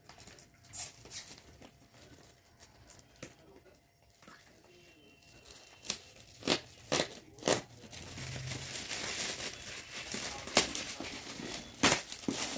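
Gift wrapping being torn and crinkled open by hand. Quiet at first with a few light clicks, then four sharp rips about six seconds in, followed by steady crinkling and rustling with more rips near the end.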